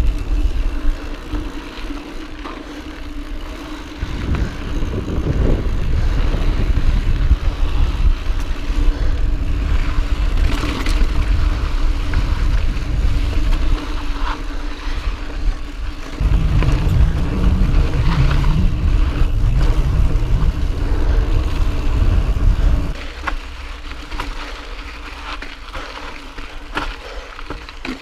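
Wind buffeting a chest-mounted action camera's microphone as a Pivot Mach 429 Carbon mountain bike rolls fast over dirt and rocky singletrack, with tyre noise and scattered clicks and rattles from the bike over bumps. The wind rumble gets much louder about four seconds in and drops back near the end.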